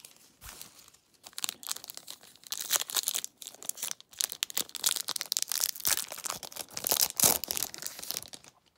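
Foil trading-card pack wrapper crinkling and being torn open by hand: a dense run of sharp crackles from about a second in until just before the end.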